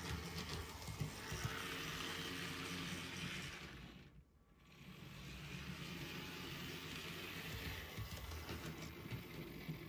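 Bachmann HO-scale GP9 model locomotive running along the track, its small electric motor and gear drive whirring steadily. The sound drops out briefly about four seconds in, then resumes.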